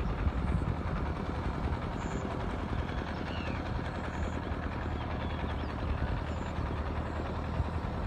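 Massey Ferguson MF4708 tractor's diesel engine running steadily as it works a flooded rice paddy, a constant low hum.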